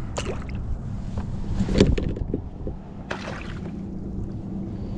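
A few knocks against a plastic kayak, the loudest about two seconds in, then a short splash as a hooked trout is lifted out of the water by the line, over a steady low hum.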